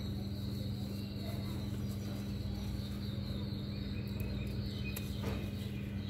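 A steady low hum fills the background, with a few faint bird chirps about four to five seconds in.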